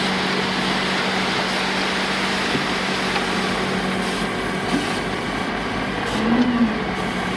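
Truck engine running steadily, with a constant low hum under a dense engine noise.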